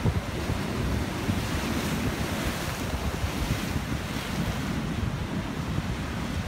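Rough sea surf breaking and washing over rocks, the hiss of the wash swelling about halfway through, with heavy wind buffeting on the microphone.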